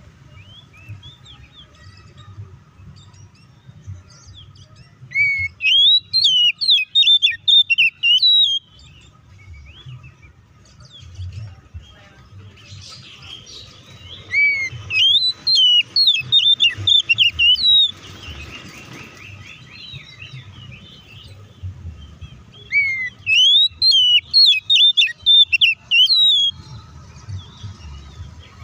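Male Oriental magpie-robin singing its loud fighting-mode song ('ngeplong tarung'). It sings in three bursts of rapid whistled and sliding notes, each lasting about three seconds, with pauses of a few seconds between them.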